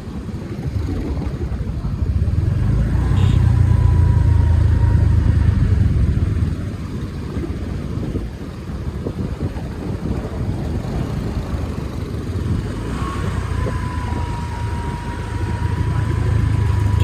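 Motor scooter running on the road, its engine rumble and wind buffeting the microphone growing louder a couple of seconds in and again near the end, with a thin steady whine at times.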